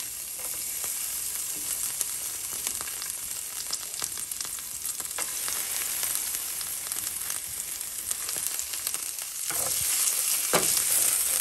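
Chopped garlic sizzling in hot oil in a nonstick frying pan: a steady hiss with fine crackling. Near the end a slotted spatula stirs it across the pan, and the sizzle grows louder.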